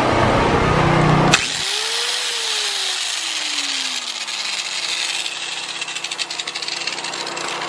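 Corded angle grinder running free, switched off about a second and a half in, then spinning down with a falling whine. A portable generator drones steadily underneath throughout. The run is a test of a newly wired outlet and its breaker, which work.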